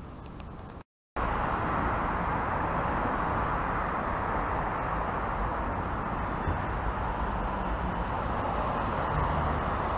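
Steady road traffic noise from cars passing on a city street, starting abruptly after a brief drop to silence about a second in.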